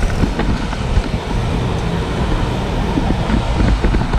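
Wind noise on the camera's microphone while cycling, over steady motor-vehicle traffic on a busy road.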